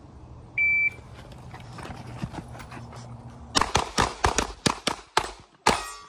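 An electronic shot timer beeps once. About three seconds later a handgun fires a rapid string of about a dozen shots.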